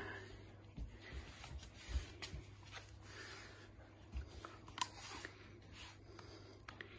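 Golden retriever puppy playing with a toy ball held in a hand: faint scattered taps, knocks and rubbing as it mouths and tugs at the toy on a wooden floor.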